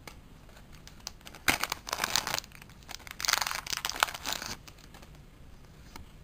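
A foil trading-card booster pack being torn open and its wrapper crinkled, in two noisy rustling bursts of about a second each, starting about a second and a half in and again about three seconds in.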